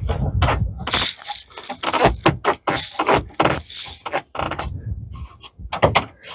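Irregular knocks, clicks and rattles of a framed upper door on a Yamaha RMAX4 side-by-side being handled, shifted and pressed into its frame while its fit is adjusted.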